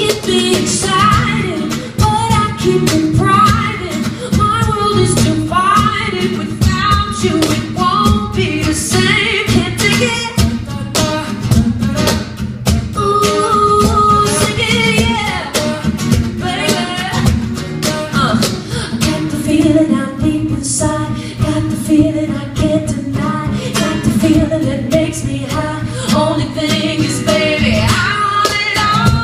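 Live acoustic pop song: a woman singing the lead over a strummed acoustic guitar.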